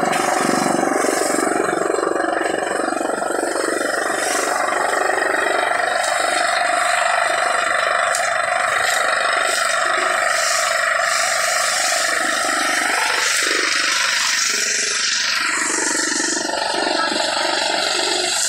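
Tractor-driven chaff cutter running steadily, its blades chopping dry crop stalks fed in by hand, with chaff blowing out of the chute and the tractor engine running under load.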